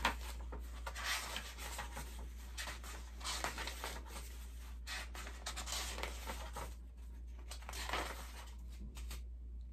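Pages of a hardcover book being turned and flipped by hand: a quick run of paper rustles and riffles that stops near the end.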